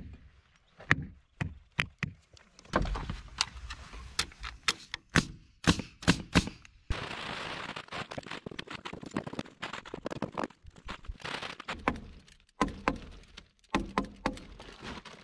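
Sledgehammer knocking on the wooden forms, a run of sharp strikes, then crinkling and rustling of heavy brown paper as it is spread out, with a few more knocks and handling sounds near the end.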